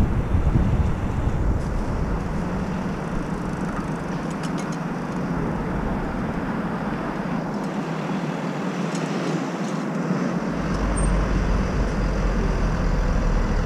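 Steady city traffic noise heard from a moving bicycle. Wind rumbles on the helmet microphone at the start and a low rumble comes back about ten seconds in.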